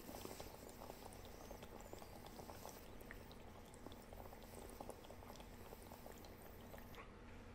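Faint bubbling of water in the Cloudious9 water-filtered vaporizer as a person draws a hit through it; it stops about seven seconds in.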